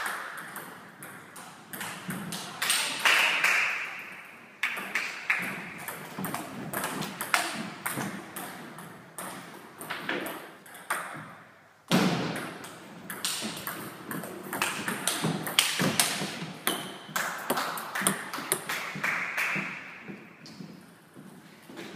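Table tennis rallies: the ball clicking off the rackets and the table in quick alternating ticks. Several points are played with short breaks between them, and a single heavier knock comes about halfway through.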